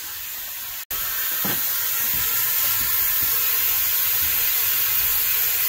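Steady hiss of running water from a garden hose pouring into a sump basin, filling it to test the sump pump. The sound cuts out for an instant about a second in, then carries on a little louder.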